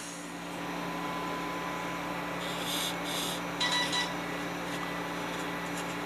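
Steady low hum of room tone, with a few faint brief handling rustles around the middle.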